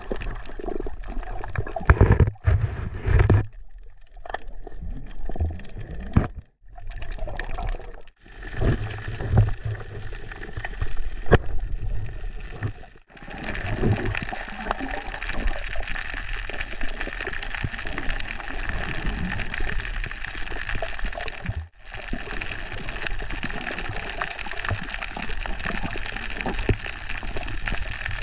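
Muffled water noise recorded underwater: gurgling and sloshing with low surges, cutting off abruptly several times, then a steadier hiss in the second half.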